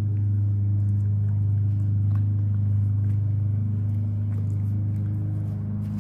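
A steady low motor hum with even overtones.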